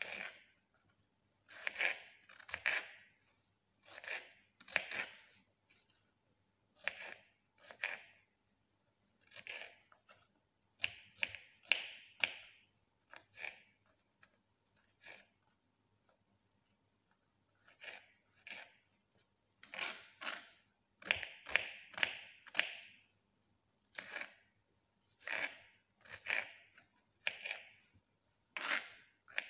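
Short, crisp scraping strokes of a hand-held blade working raw food, coming in irregular runs with brief pauses.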